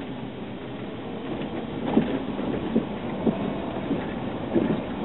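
Road and engine noise heard from inside a slowly moving car, with a few short thumps from about two seconds in.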